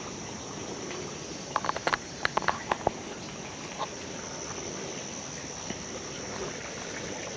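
Footsteps on dry forest litter: a quick run of sharp snaps and crackles about one and a half to three seconds in, with one more a second later. Under them, a steady high-pitched insect drone.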